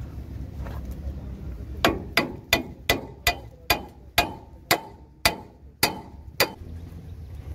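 About eleven ringing metal-on-metal hammer blows on the steel steering knuckle and kingpin of a truck's front axle, starting about two seconds in, a little under three a second and slowing slightly. They are knocking the knuckle loose from the axle.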